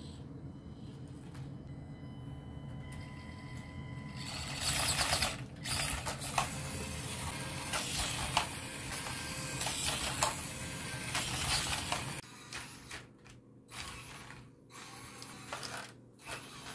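Small RC crawler's electric motor and geared drivetrain running in a steady whirr. About four and a half seconds in, a rough, crunchy noise with clicks joins it. The motor noise stops at about twelve seconds, leaving a few scattered clicks.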